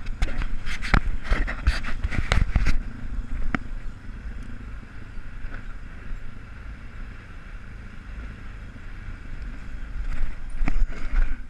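ATV engine running as it rides over a rough, snowy trail, with a steady low drone. Bursts of knocks and rattles come in the first few seconds and again shortly before the end, as the machine jolts over bumps.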